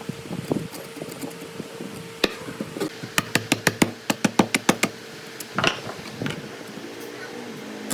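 A quick series of sharp knocks, about five a second at their fastest, over a steady machine hum. It is typical of tapping or hammering on wood.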